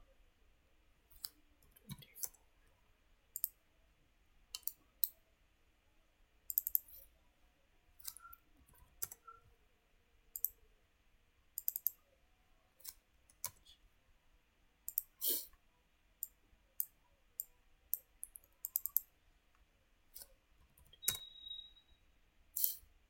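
Computer mouse clicking at irregular intervals, single clicks and quick double clicks, while dimensions are placed in a CAD program.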